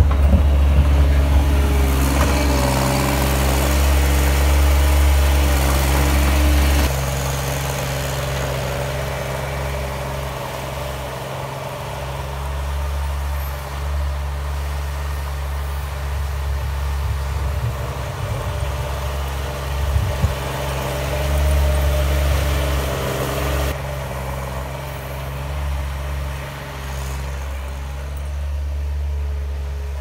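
New Holland skid steer engine running steadily while the machine moves snow with its bucket. It is loud and close for the first several seconds, then quieter from about a quarter of the way in as the machine works further off.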